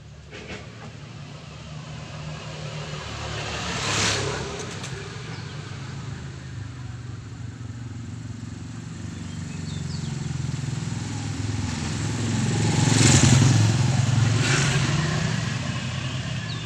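Engine of a passing motor vehicle, swelling to its loudest about three-quarters of the way through and then fading.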